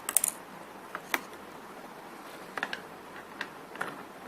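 Handling noise on a workbench: a quick cluster of sharp clicks at the start, then single light clicks and taps about once a second.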